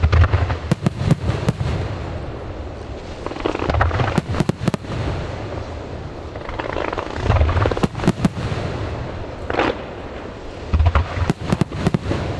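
Aerial fireworks shells bursting in a display: four deep booms a few seconds apart, each with a cluster of sharp cracks around it.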